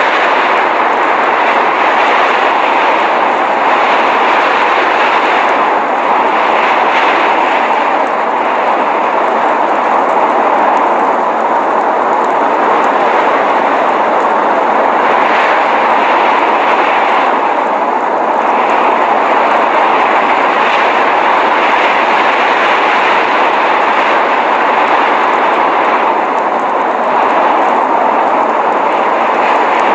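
Steady, even rushing noise of a blizzard wind, with no gusts or breaks.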